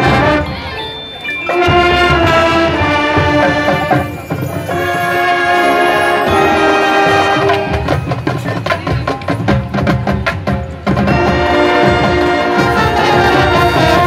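High school marching band playing: saxophones, flutes and brass holding chords over a drumline, with a thick run of drum strokes in the middle.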